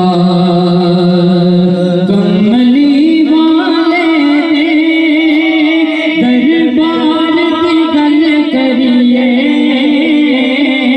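A solo voice singing a devotional Urdu kalam, holding a long low note, then about two seconds in climbing to a higher note and decorating it with quick ornamental turns.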